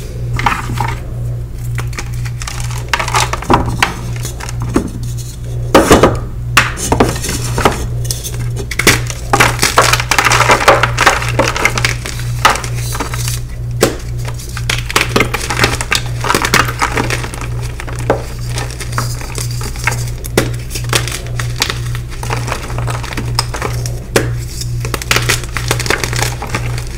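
Dyed gym chalk blocks being snapped and crumbled by hand in a plastic bowl: dry crunches and crumbly cracks, with a cluster of sharp cracks about six seconds in. Under them runs a steady, evenly pulsing low hum.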